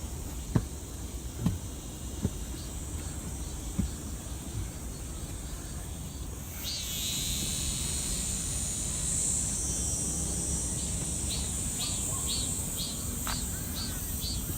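Cicadas buzzing in the trees, a steady high-pitched drone that swells louder about six and a half seconds in. Near the end a pulsing call joins it, about two or three pulses a second. A few light taps sound in the first few seconds.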